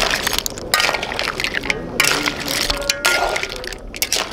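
A metal spatula scraping and clinking against a steel wok as mussels, squid and prawns are stirred through a thickened sauce, with wet sloshing of the sauce and shells knocking together.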